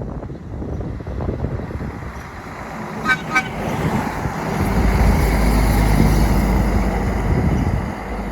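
Two short honks from a semi truck's horn about three seconds in, then the truck passes loudly with a low engine rumble, fading near the end.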